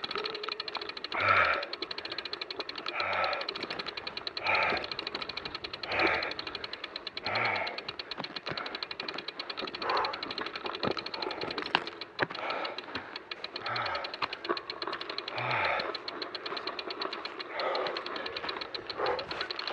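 A mountain biker panting hard, a voiced groaning exhale with a falling pitch about every second and a half, while walking the bike up a steep climb. Underneath runs the rapid, steady ticking of the bicycle's rear freewheel hub as the bike rolls without being pedalled.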